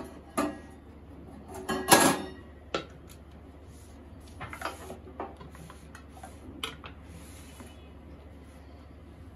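A stainless steel plate and a wooden chopping board being handled and set down on a kitchen counter: a few short clinks and knocks, the loudest about two seconds in, with quieter clatters around five and six and a half seconds.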